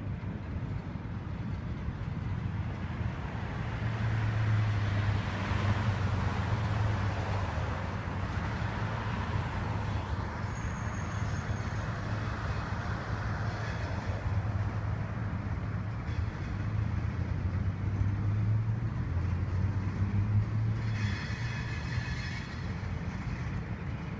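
Freight cars rolling past: a steady low rumble and wheel noise from the passing tank cars and boxcars, swelling about four seconds in. About three seconds from the end comes a brief high-pitched ringing tone.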